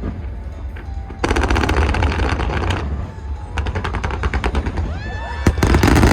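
Aerial fireworks crackling in long, rapid rolls, like a machine gun, from crackle shells bursting overhead, with a few whistles rising about five seconds in.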